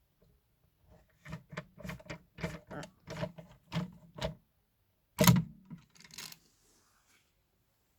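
A run of about ten quick knocks and clatters, roughly three a second, from handling parts of a subwoofer being taken apart. A single louder thunk follows about five seconds in, then a few fainter knocks.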